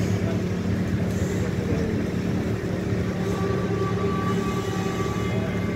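Steady low engine hum of busy road traffic, with a thin higher whine joining about halfway through.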